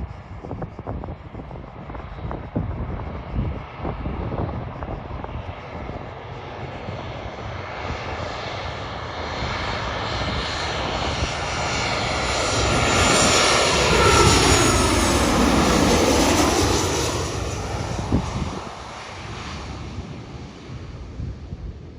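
Jet engines of a landing Boeing 737-800 airliner passing by. They grow steadily louder to a peak about two-thirds of the way through, with a sweeping whine that falls and then rises, then fade away. Wind buffets the microphone near the start and end.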